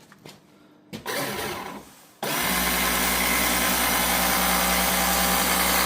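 Small electric pump switching on about two seconds in and running with a steady hum, drawing diesel mixed with air out through a small pipe to bleed and prime the fuel system of a 2.2 diesel engine.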